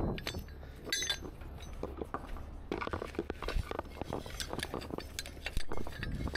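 Steel recovery chain clinking and rattling as it is dragged over gravel and mud, its links and hook knocking together in a run of irregular metallic clinks.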